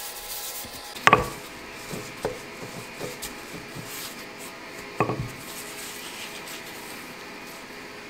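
A rolling pin knocking twice on a granite countertop, a sharp knock about a second in and another about five seconds in, with a few softer taps and rubbing as pastry dough is rolled up onto the pin.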